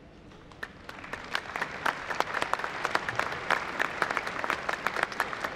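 Audience applauding, many hands clapping, starting thinly about half a second in and building quickly into steady applause.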